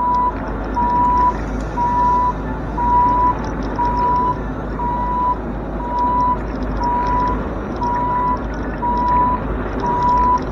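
Bobcat E42 mini excavator tracking with its travel alarm beeping about once a second over the steady running of its diesel engine.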